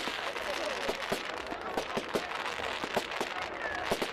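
Fireworks going off: a rapid, irregular run of sharp bangs and cracks, several a second.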